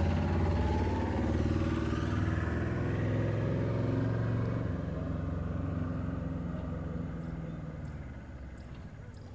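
A motor vehicle's engine running close by with a low, steady hum, then fading away over the last few seconds as it moves off.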